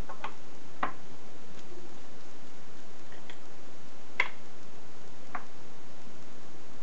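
A few light clicks and taps of small metal parts being handled, with a sharper knock about four seconds in as the metal clamp block is set down on the bench; a steady hiss runs underneath.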